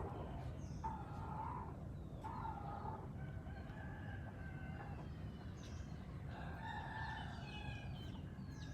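A rooster crowing, twice: a long multi-part crow in the first half and a shorter one near the end, over a steady low rumble.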